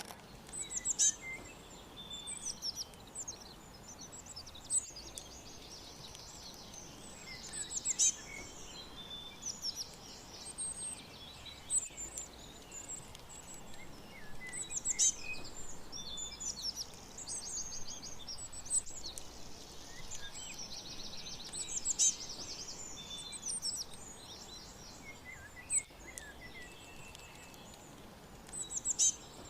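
Songbirds chirping and trilling: short high calls and quick runs of rapid repeated notes come in irregular clusters over a faint steady hiss.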